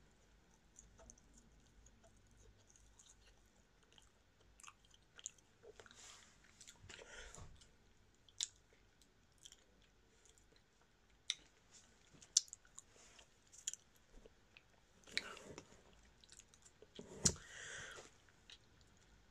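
A person chewing a piece of advent-calendar chocolate with the mouth closed: faint, scattered wet mouth clicks and smacks, with a few louder noisy puffs.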